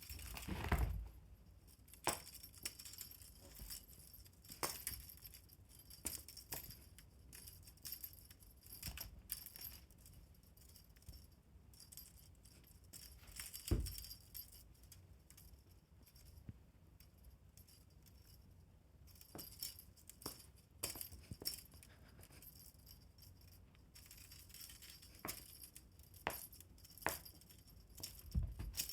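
Fishing-rod pet toy jingling and rattling in irregular bursts as it is swung and batted about, with a few soft thumps, the loudest about fourteen seconds in.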